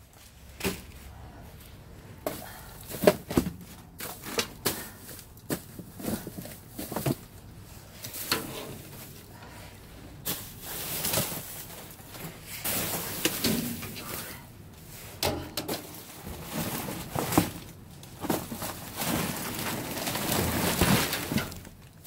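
Rummaging in a dumpster: loose plastic bags rustling and crinkling, with many scattered knocks and thumps as cardboard boxes and packaged snacks are shifted and dragged around with a rake.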